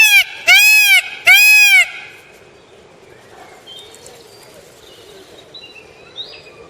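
Peacock calling: three loud, wailing calls in quick succession, each arching up and then down in pitch, the first already under way. After them come only faint, short, high chirps.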